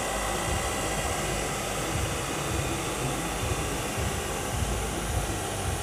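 Steady rushing background noise with a faint hum, even throughout and without distinct events.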